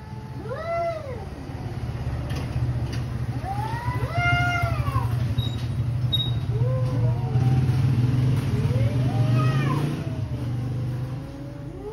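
Two cats yowling at each other in a standoff: about five long, drawn-out caterwauls, each rising and then falling in pitch. A low steady hum runs underneath through the middle.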